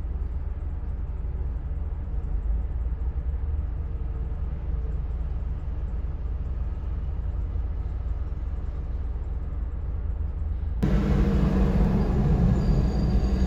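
Garbage truck's diesel engine rumbling steadily. About eleven seconds in it cuts abruptly to a louder, fuller engine rumble.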